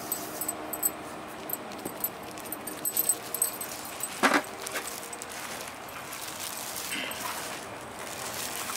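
Gloved hands mixing raw banana slices with turmeric powder on a metal tray: plastic gloves crinkling and slices rustling and clicking against each other. There is one brief, louder sound about four seconds in.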